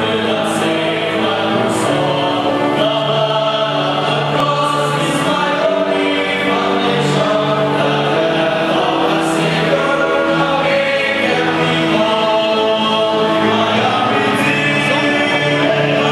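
A men's choir singing a hymn together in harmony, with long held notes.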